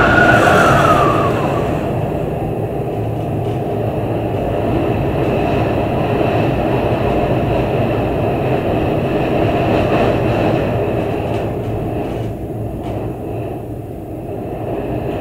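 Heavy winter-storm wind gusting, a dense low rumble that swells and eases, dropping back a little near the end. A brief high squeal rises and falls at the start.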